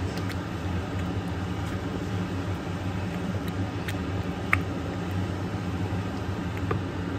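Steady low hum of a kitchen range hood fan, with a few light clicks and scrapes of a wooden spoon stirring thick meat sauce in a pan. The sharpest click comes about four and a half seconds in.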